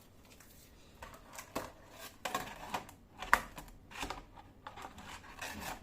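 Hands handling the lock's small hard parts and packaging: a run of irregular clicks, clacks and rustles beginning about a second in, with the sharpest click a little past halfway.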